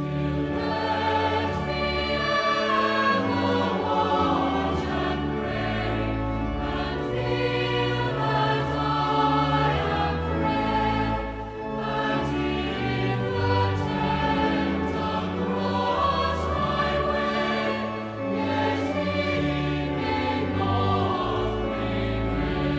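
Church choir singing, with held chords that change every second or so; the music starts abruptly at the outset.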